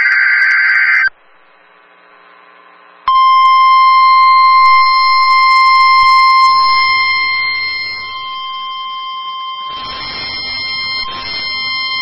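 NOAA Weather Radio weekly test signal. The end of a SAME digital header burst, a raspy data screech, cuts off about a second in. After a two-second pause comes the steady 1050 Hz warning alarm tone, one long held beep of about nine seconds, with some hiss breaking in near the end.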